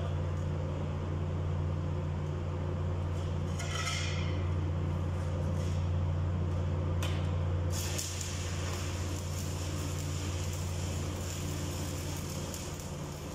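Electric arc welding: the arc hisses and crackles steadily, growing stronger and brighter in tone about eight seconds in, over a steady low electrical hum.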